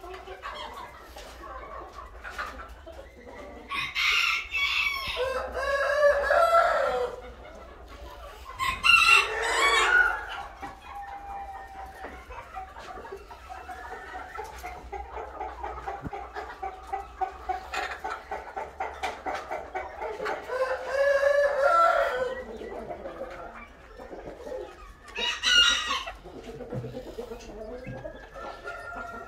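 Roosters crowing several times, loud calls that fall in pitch at their ends. Between the crows there is a long run of rapid, rhythmic clucking.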